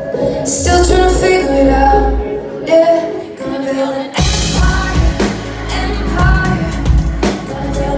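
Female pop singer singing live into a microphone with band accompaniment. About four seconds in, the backing becomes much fuller, with a deep, steady beat.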